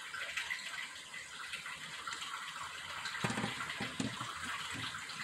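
Steady rushing background noise like running water, with a few soft low knocks between about three and five seconds in.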